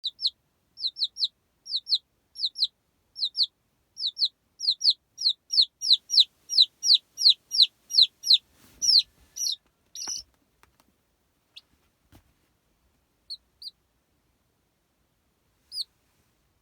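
Baby chicks peeping: short, high chirps that slide down in pitch, coming in pairs and threes, then in a quick run of about two a second. After about ten seconds they thin to a few scattered peeps, and a couple of faint knocks come near the middle.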